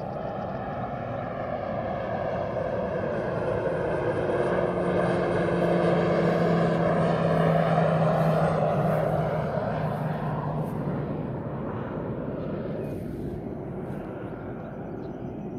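Propeller-driven aircraft flying past: the engine and propeller sound swells to its loudest about eight seconds in, drops in pitch as it passes, then fades.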